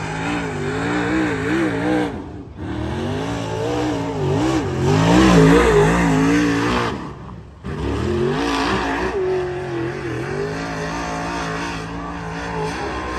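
Dirt modified race car engine at full race pace, the revs rising on the straights and dropping into the turns over and over, on qualifying laps. The sound breaks off briefly twice.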